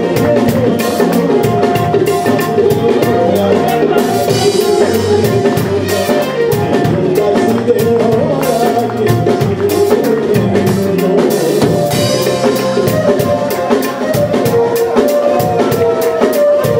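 Instrumental passage of live Punjabi folk music: harmonium playing held melody notes over a steady tabla rhythm and an electric bass guitar line.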